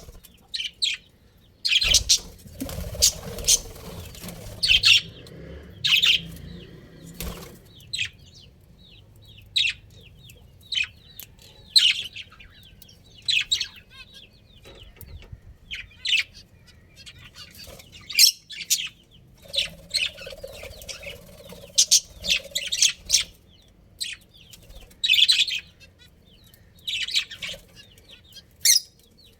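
Budgerigars chirping: short, high calls every second or so, some coming in quick clusters.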